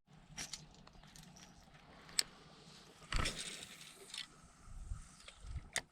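Faint handling sounds of a fishing rod and reel: a sharp click about two seconds in, a brief rustle or swish about a second later, and a few light clicks near the end.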